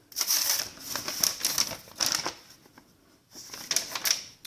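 Paper instruction sheet being handled, rustling and crinkling in two spells with a short pause a little before the end.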